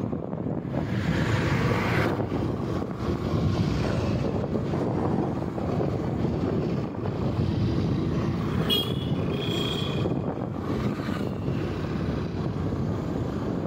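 Steady engine and road noise of a moving road vehicle, with wind on the microphone. A short high-pitched tone sounds about nine seconds in.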